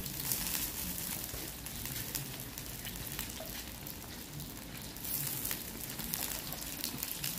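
Boiled goat meat frying in hot oil in a wok with dried chillies, shallots and garlic: a steady sizzle full of fine crackles, growing louder for a moment about five seconds in.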